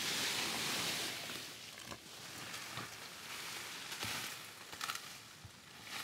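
Cut leafy tree branches rustling as they are gathered up and dragged by hand, with a few scattered clicks and knocks. The rustling is loudest in the first second or two.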